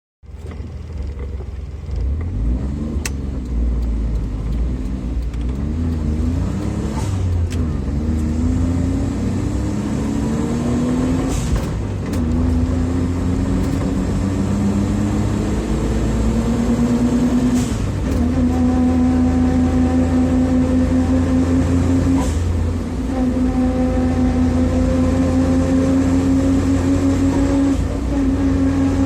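Suzuki Jimny JA11 being driven, its pinion gear whining over the low rumble of engine and road. The whine climbs slowly in pitch and breaks off briefly a few times before coming back. It is the abnormal noise of chipped teeth on the pinion gear.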